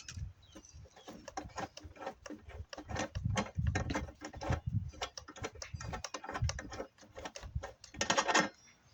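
Irregular clicking, knocking and clattering of small metal parts and hand tools as the underside of a dishwasher is dismantled, with a louder rattle near the end.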